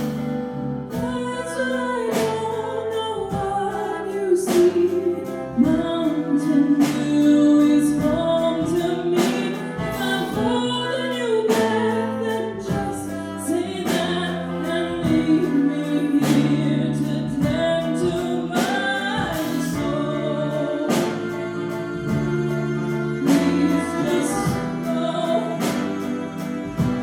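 A song: a singer's voice over guitar-led accompaniment with regular strummed strokes.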